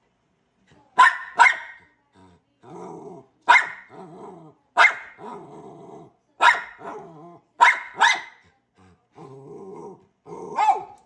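Small dog barking at a glass door to be let outside: about eight sharp barks, some in quick pairs, with low grumbling growls between them.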